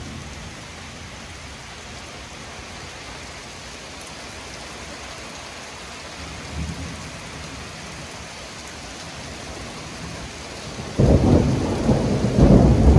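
Heavy rain falling steadily, with a brief low rumble of thunder about seven seconds in. About eleven seconds in, a loud thunderclap from a close lightning strike breaks in suddenly and rumbles on.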